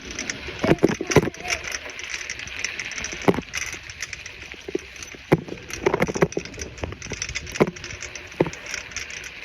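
Bicycle being ridden: a steady hiss of tyres and air, with irregular knocks and rattles from the bike.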